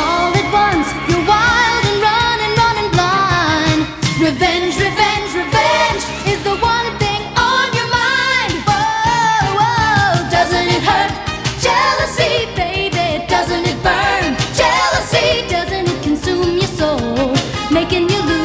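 Pop song: a lead vocal sings a wavering melody over a steady drum beat and backing instruments.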